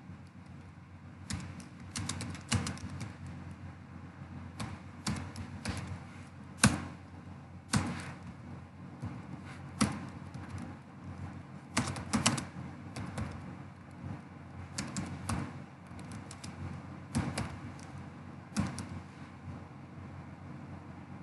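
Computer keyboard being typed on: irregular runs of key clicks with short pauses between words. One keystroke about six and a half seconds in is louder than the rest.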